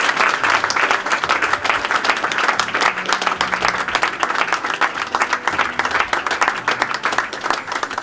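A small group of people applauding, many hand claps overlapping in a dense, steady patter.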